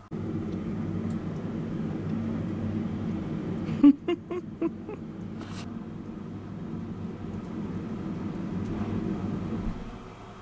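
A steady low rumble throughout, with a cat giving a few short, sharp meows in quick succession about four seconds in.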